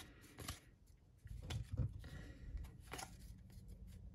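Baseball trading cards being flipped through by hand: a few light clicks and slides of card against card, with low handling rumble.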